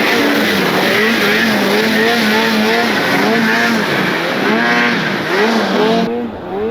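Snowmobile engine revving up and down hard while it skims across open water, over a loud rushing hiss. About six seconds in the hiss cuts off suddenly and the sound gets quieter, while the engine keeps rising and falling.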